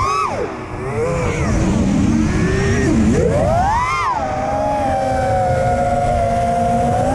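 FPV freestyle quadcopter's brushless motors whining with throttle over a steady rush of wind. The pitch drops low within the first second as throttle is cut, climbs sharply around three to four seconds in, then settles into a steady tone.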